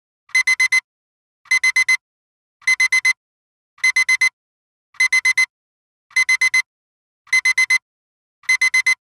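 Timer alarm beeping when the countdown runs out: quick sets of four short, high-pitched electronic beeps, about eight sets repeating a little more than once a second.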